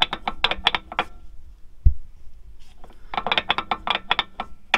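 Broken front CV axle of a 1997 Nissan Pathfinder clicking hard and fast, about eight clicks a second, as the hub turns with the wheel off. The clicking breaks off for about two seconds, during which there is a single low thump, then starts again. This clicking is the sign of the failed CV axle, which the owner believes has come apart in two pieces.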